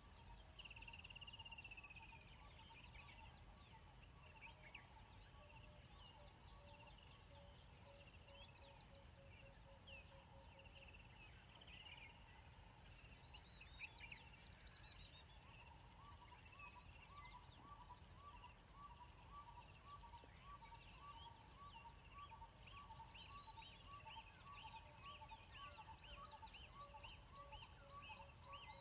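Faint chorus of wild birds calling: assorted whistles and trills, with one bird repeating a short call at about two a second from about halfway through.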